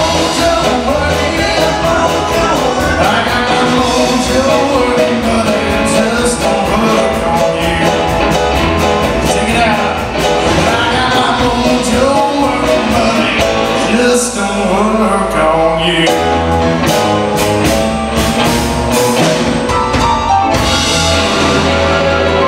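Live blues band playing an electric blues shuffle on electric guitar, keyboard, bass and drum kit, with singing. Past the middle the bass drops out for a couple of seconds, then a run of sharp accented hits leads back into the full band.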